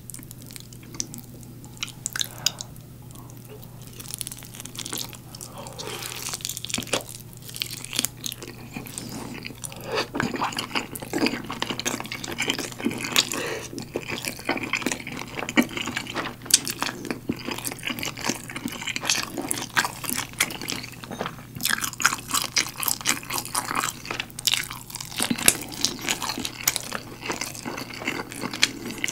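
Close-miked eating of galbi-sauce-glazed roast chicken: wet chewing and mouth smacks with quick crunches, and fingers pulling the saucy meat apart, growing busier about a third of the way in.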